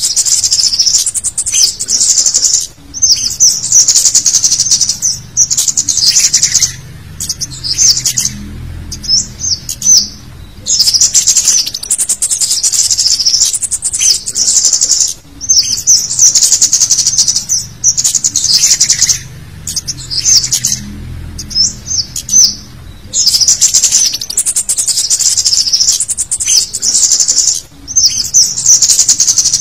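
Rapid, high-pitched chirping and trilling of cit kemade birds, in busy bursts of a second or two with short gaps between them. It is a lure recording ('pikat') of excited 'ribut' calls, used to draw wild birds of the same kind.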